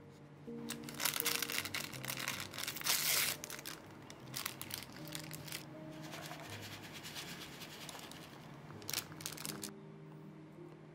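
Rustling and crinkling of a paper pad being pressed into a paper cup, loudest in the first few seconds, with a shorter burst near the end. Soft background music plays underneath.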